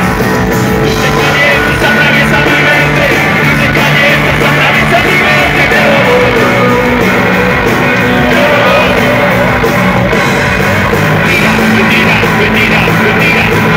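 Rock band playing live and loud: electric bass and drums with guitar, the low bass notes held and the drums driving underneath.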